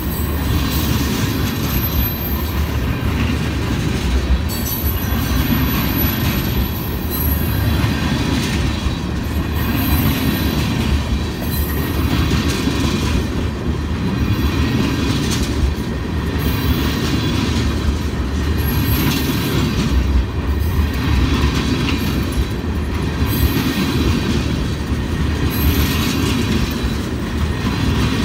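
Freight train of tank cars rolling past close by: a steady rumble of steel wheels on rail, with a clatter that swells about every two seconds as each car's wheel sets pass. Brief high-pitched wheel squeals come twice in the first six seconds.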